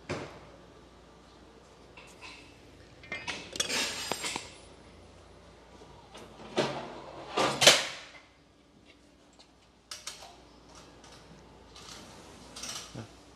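Metal parts and tools clinking and clattering as they are handled and set down, in several bursts, the loudest about seven and a half seconds in.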